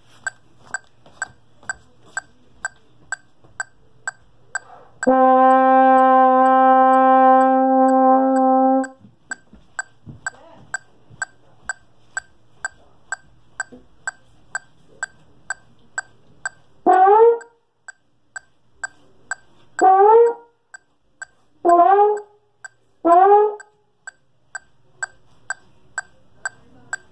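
A brass instrument over a metronome clicking about twice a second: one long held note starting about five seconds in and lasting nearly four seconds, then four short notes about twenty seconds in, each scooping up into pitch.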